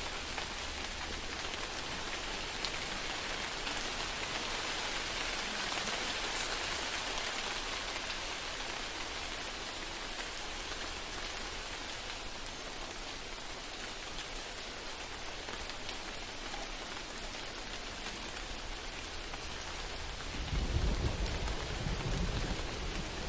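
Steady rain falling. A low rumble swells near the end and is briefly the loudest sound.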